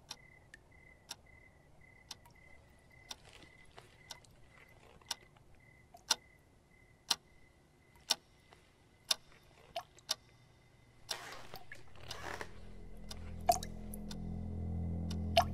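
Wall clock ticking about once a second over a faint high pulsing tone. About twelve seconds in, a low droning music swells in, and a tap drips twice.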